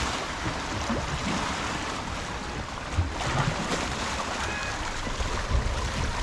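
Wind buffeting the microphone over the steady wash of the sea, with stronger gusts about three seconds in and again near the end.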